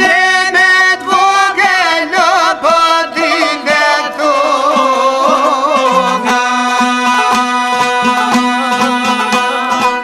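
Albanian folk ensemble song: a male voice sings an ornamented line with heavy vibrato over violin, plucked strings and a steady beat, and the steadier instrumental notes take over about six seconds in.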